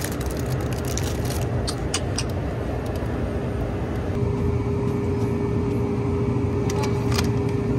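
Steady hum and rush of store refrigeration and ventilation, with a steady tone joining about four seconds in. A few light clicks about two seconds in and again near the end.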